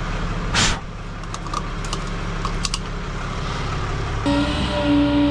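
Steady rumble of a vehicle engine running, with a short hiss about half a second in and a few light clicks; about four seconds in a steady humming drone starts abruptly over the rumble.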